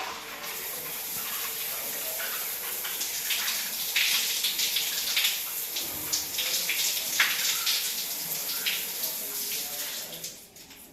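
Water running hard from a bath shower fitting and splashing, shut off near the end.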